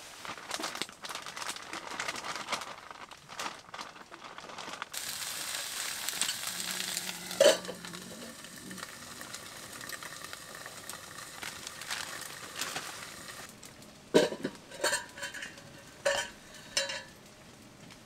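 A piece of meat frying and sizzling in oil in a pan, the sizzle setting in about five seconds in. A sharp knock comes around halfway, and near the end there are several short ringing clinks of metal utensils against the cookware.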